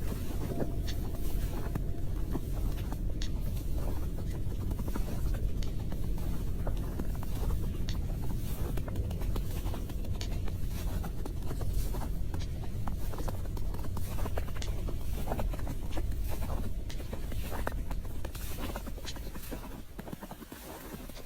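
Steady low rumble, like wind buffeting an outdoor microphone, with many small scattered clicks and scratches over it. It drops quieter near the end. No howl or call stands out.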